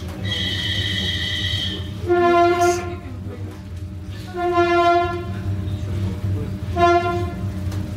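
Train running with a steady low rumble. A high steady tone sounds for about the first two seconds, then the train's horn sounds three times on one pitch, the last blast shorter.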